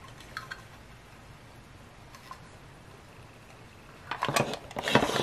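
Small plastic toy armoire being handled: a couple of faint clicks, then a cluster of sharp plastic clicks and knocks near the end as its doors are worked and it is handled against the tabletop. Otherwise quiet room tone.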